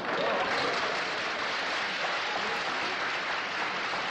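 Lecture-hall audience applauding steadily, with a few voices mixed in near the start.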